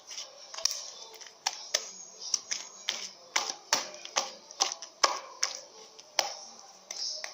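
Homemade glossy slime being kneaded and squeezed by hand, making an irregular string of sharp clicks and pops, about two or three a second.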